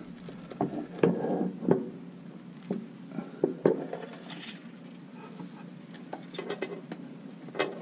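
Steel chain links of a Kydex foam press clinking as the chain is pulled tight and hooked over the lid, holding pressure on the forming Kydex. A few knocks come from the press lid early on.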